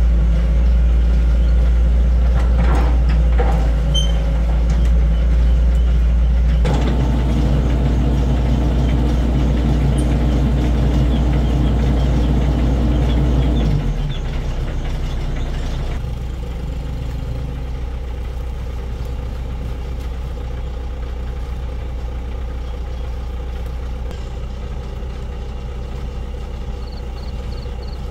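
Excavator's diesel engine running at high throttle, then dropping to a lower, quieter idle about halfway through and idling steadily from there.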